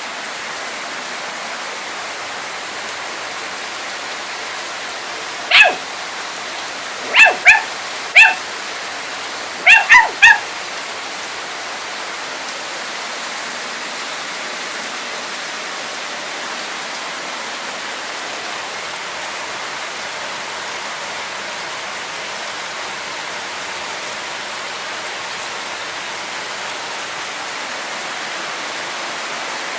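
A puppy barking in short, high yaps, about seven of them in quick groups between about five and ten seconds in, over the steady hiss of rain.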